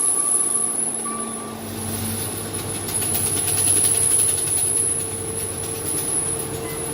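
Skid steer engine running under load, its backup alarm beeping twice in the first second and a half, then the engine note strengthening as it works.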